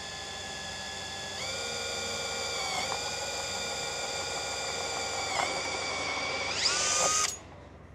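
Electric hand drill boring a rivet hole through thin aircraft sheet metal: a steady motor whine that steps up in pitch about a second and a half in and dips briefly twice under load. Near the end the pitch rises sharply and the drill stops.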